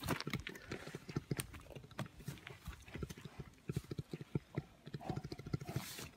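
Syrian brown bear purring: a rapid, uneven run of short, low pulses.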